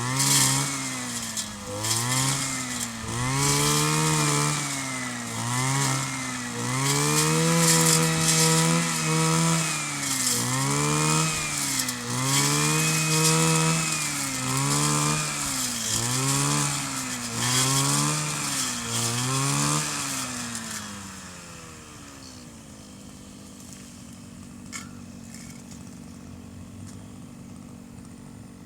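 Kioritz 260 brush cutter's small two-stroke engine revved up and down over and over, about once a second or so, then dropping back to a steady idle about 21 seconds in.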